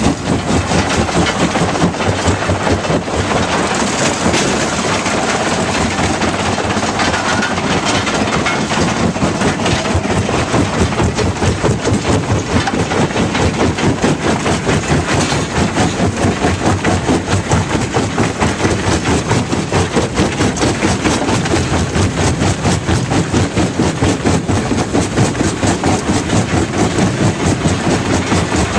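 Fintec 1107 jaw crusher crushing limestone. The diesel power unit runs under load, and the swinging jaw gives a fast, even beat, mixed with the grinding and knocking of rock in the crushing chamber.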